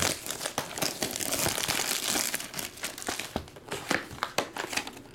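Plastic shrink-wrap being torn and peeled off a trading-card hobby box, a dense crinkling and crackling of cellophane.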